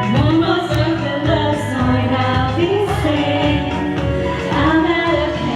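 Pop music with singing: a steady accompaniment under a sung melody line that swoops up in pitch a few times.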